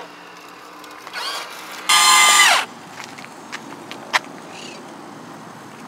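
An electric RC car motor is blipped on the throttle twice: a short whine about a second in, then a louder, longer one that holds its pitch and winds down. A few light clicks follow.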